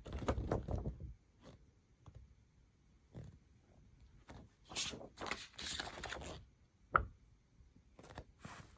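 Glossy paper pages being handled and turned, with bursts of rustling and sliding paper and a single sharp tap late on.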